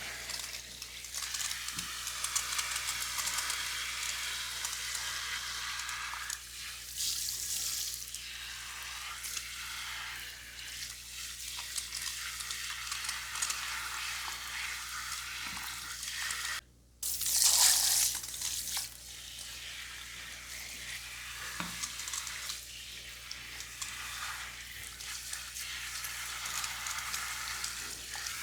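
Hands rubbing and kneading a scalp through the hair during a head massage, a steady crackly rustle. It breaks off for a moment about 17 seconds in, then comes back as a louder burst of rustling.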